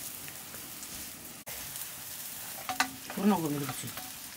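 Nettle leaves sizzling in a hot black iron wok over a wood fire, stirred with a wooden stick that knocks and scrapes against the pan a few times in the second half.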